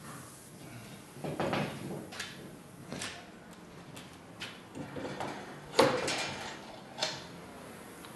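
Clanks and rattles of a steel animal-drawn farm implement being handled: a series of separate metallic knocks and clatters, the loudest and sharpest about six seconds in.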